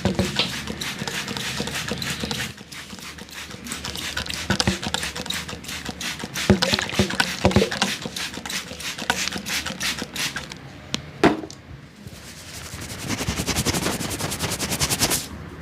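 Hands working an oiled scalp and neck in a head massage: irregular slaps, pats and wet rubbing strokes. Near the end comes a fast, even run of clicks lasting a couple of seconds.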